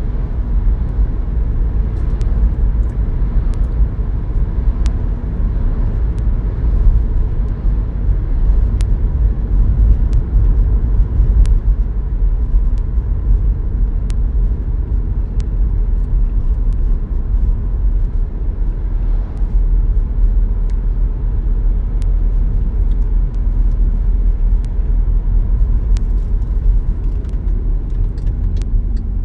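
Car driving at steady speed, heard from inside the cabin: a continuous low rumble of tyres on the road and the engine, with scattered faint ticks.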